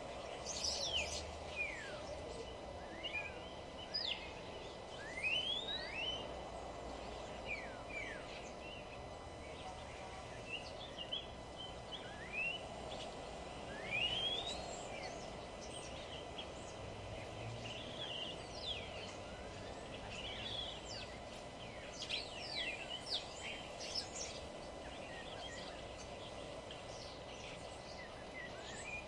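Several small songbirds chirping and calling, short quick sweeping notes coming irregularly, over a steady low background noise.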